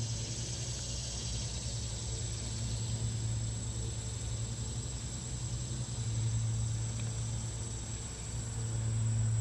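Electric trolling motor humming steadily, swelling a little now and then, with a steady high insect drone over it.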